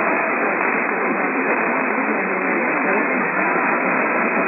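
Weather radio receiver static: a steady, even hiss on a weak signal, thin-sounding with no highs.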